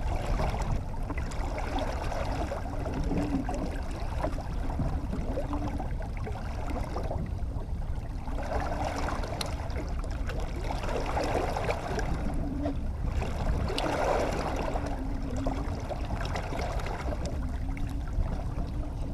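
Boat running at trolling speed: a steady low motor rumble under water sloshing and splashing against the hull.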